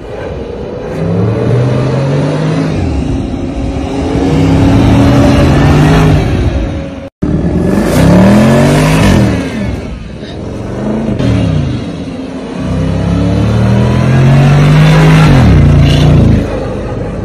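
Land Rover Defender V8 engine revving hard through its exhaust, revs climbing and dropping again and again as the truck slides in loose sand. The sound cuts out for an instant about seven seconds in.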